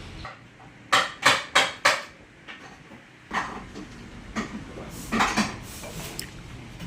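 Metal parts clanking and clinking against each other: four sharp knocks in quick succession about a second in, then lighter, scattered clinks.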